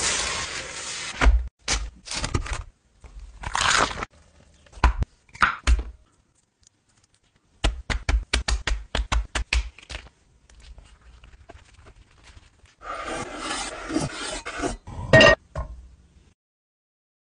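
Close-up kitchen food-prep sounds in short bursts. A small seasoning grinder is worked over a pizza at the start. Midway comes a quick run of about a dozen sharp taps at roughly five a second, and later a longer scrape ending in a sharp knock.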